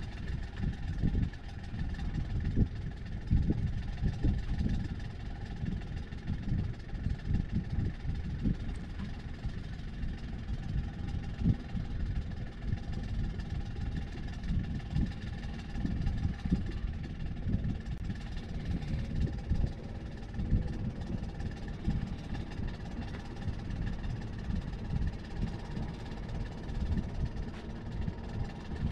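Sailboat's auxiliary engine running steadily under way, a constant low rumble with faint steady tones above it, mixed with wind buffeting the microphone.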